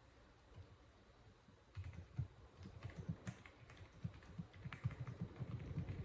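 Typing on a Womier SK71 mechanical keyboard with pre-lubed linear switches in a gasket-mounted aluminium case. A few faint taps at first, then from about two seconds in a quick, continuous run of keystrokes, mostly low and muted in tone.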